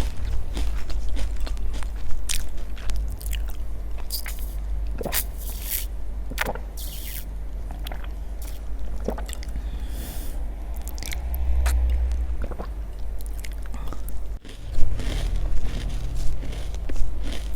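Close-miked eating: biting and chewing with many short crunchy clicks and crackles, over a steady low rumble.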